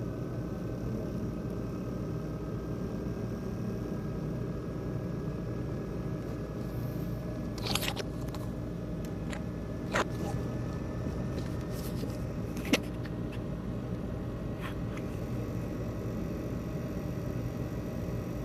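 ASUS X543UA laptop's CPU fan running with a steady buzz and rattle, the sign of a faulty fan. A few sharp clicks come through, about 8, 10 and 13 seconds in.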